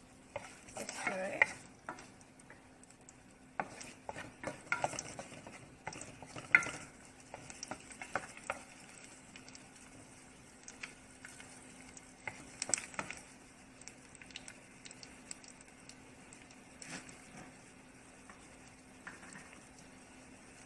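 Wooden spoon stirring and scraping sliced vegetables in hot oil in a nonstick pot, with light sizzling. Clicks and scrapes come thick in the first dozen seconds, then only now and then, over a faint steady hum.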